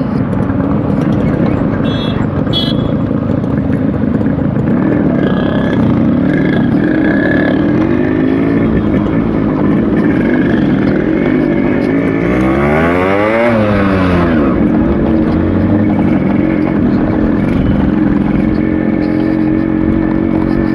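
Yamaha RX100's two-stroke single-cylinder engine running steadily while riding, with the engine pitch rising and falling once about two-thirds of the way through.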